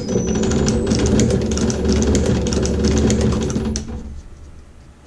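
Wire stitcher head on a test machine running and driving test staples from wire: a steady motor hum with rapid, regular clicking. It stops about four seconds in and winds down. The staples are a test of the staple leg lengths after the left-leg adjusting screw was turned.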